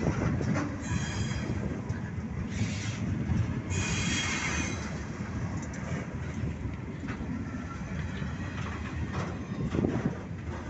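Steel gondola cars of a freight train rolling past close by: a steady low rumble of wheels on rail with scattered clacks, and bursts of high wheel squeal, the strongest about four seconds in.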